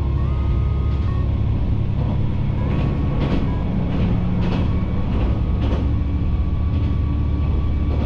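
Diesel railcar running, a steady low engine rumble with the wheels clicking over rail joints several times in the middle.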